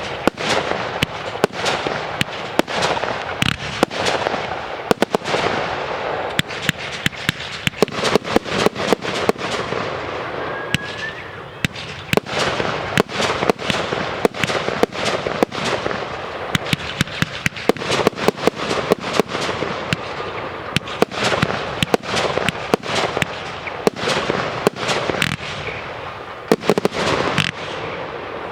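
Fireworks display: a dense, unbroken run of bangs and crackling bursts, several a second, with a brief rising whistle about eleven seconds in.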